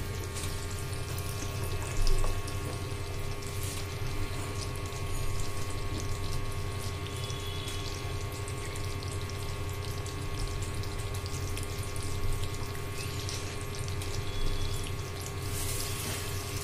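Thick jaggery syrup boiling and crackling in the pan, near the hard-ball stage, over a steady hum, with a few brief louder splashes or knocks.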